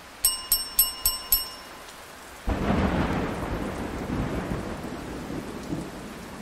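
Rain and thunder sound effect: steady rain hiss, with four quick bright chime notes near the start and a rumble of thunder that comes in about two and a half seconds in and slowly fades.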